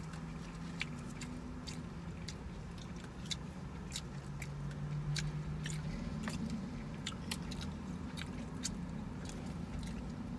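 A person chewing a mouthful of bacon quarter-pounder cheeseburger, with small wet mouth clicks scattered throughout, over a steady low hum.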